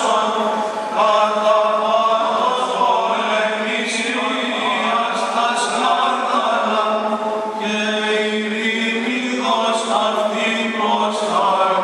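Byzantine chant of the Greek Orthodox Good Friday service: voices sing a winding melody over a steady held low drone note (the ison).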